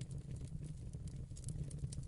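Wood fire burning in a fireplace: a low steady rumble of the flames with irregular sharp crackles and pops from the burning logs.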